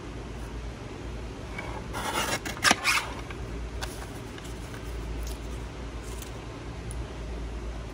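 Paper trimmer cutting a sheet of paper: a short rasp of the blade through the paper about two seconds in, ending in two sharp clicks, then a few faint clicks as the paper is handled.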